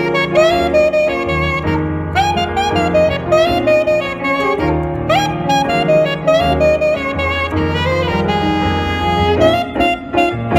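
Instrumental jazz-style music: a saxophone-like lead melody that scoops up into its notes, over piano chords and a steady bass line, with one long held lead note near the end.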